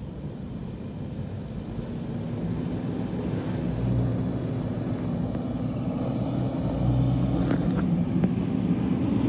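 Four-wheel-drive vehicle's engine running, growing gradually louder.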